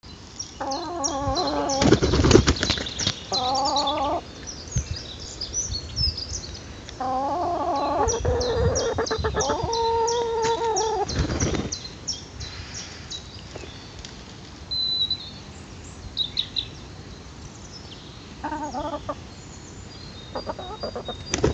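Partridge-coloured Italiener hens calling in a few drawn-out calls, with loud bursts of wing-flapping as a hen flies up onto an arm, about two seconds in and again near the middle.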